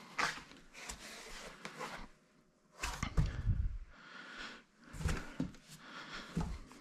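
Packaging being handled: a fitted foam insert lifted off a cardboard box and set down, with scattered rustles, light knocks and a couple of dull thumps, then hands rustling the cloth bag wrapped around the subwoofer near the end.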